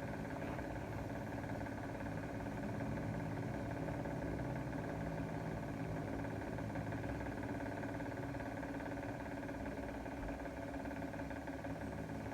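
Steady drone of a running engine, even and unchanging, with a low hum and several held tones.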